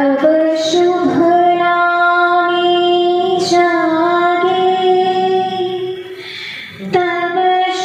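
Music: a woman singing long, held notes. There is a short dip a little before the end, and then a new phrase begins.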